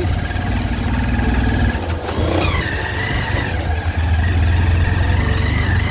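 Motor vehicle engine running as it drives slowly over a rough, bumpy dirt track, with a steady low rumble. About two seconds in, a high whine slides down in pitch and then holds steady.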